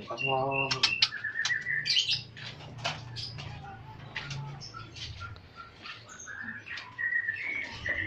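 Many caged lovebirds chirping in short, sharp calls, with wings flapping in the cages.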